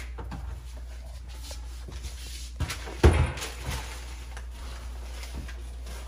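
A few light knocks and one sharper thump about three seconds in, over a steady low hum.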